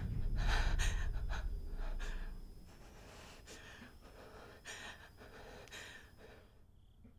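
A frightened woman gasping and breathing hard: several quick, sharp breaths in the first two seconds, then slower breaths about a second apart. A low rumble underneath fades away over the first couple of seconds.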